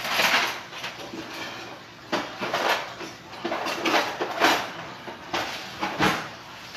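Kitchen utensils clattering and knocking in a quick irregular series as someone rummages through them, searching for a piping tip.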